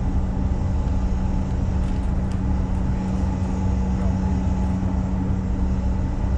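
Steady cabin noise inside a CRJ-900 regional jet on the ground: the low, even hum of its rear-mounted turbofan engines with a rumble underneath.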